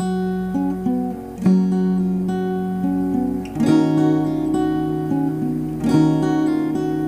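Acoustic guitar playing a slow song intro: a chord struck about every two seconds, left ringing, with single notes picked in between.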